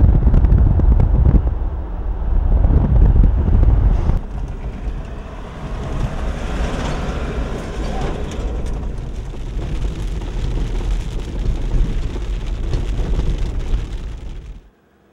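Wind buffeting the microphone over a steady low rumble. The sound changes abruptly about four seconds in and cuts off just before the end.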